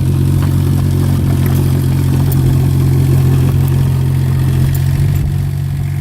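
Kubota K008 mini excavator's small diesel engine running steadily at a constant speed.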